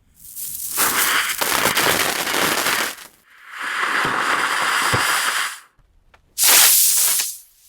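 Fireworks going off in three separate bursts. The first, over about three seconds, is a dense run of rapid pops; the second is a smoother hiss lasting about two seconds; the third is shorter and the loudest, near the end.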